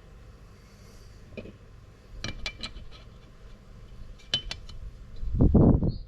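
Small metal parts clinking and ticking as a piston ring and feeler gauge are handled at the cylinder bore, in two short clusters about two and four seconds in. Near the end comes a louder low rubbing scrape, the loudest sound here, as the ring is pushed back square in the bore.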